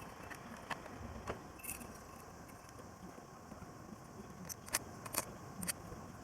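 Scattered light metallic clicks and clinks, about eight in all, the loudest pair about five seconds in.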